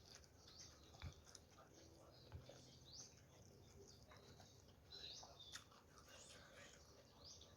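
Near silence with faint, repeated high bird chirps in the background, one short call about every two seconds, and a couple of soft knocks.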